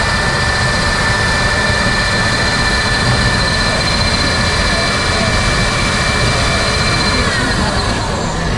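A machine runs with a steady high whine over a loud rushing noise, then slows, its whine falling in pitch about seven seconds in.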